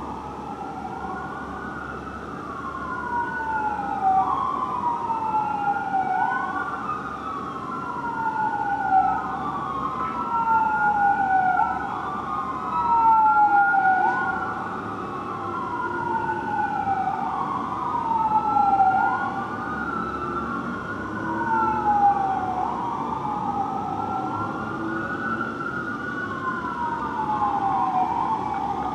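Fire engine's electronic wail siren rising and falling about every two and a half to three seconds, with a second set of sweeps overlapping out of step, over a low rumble.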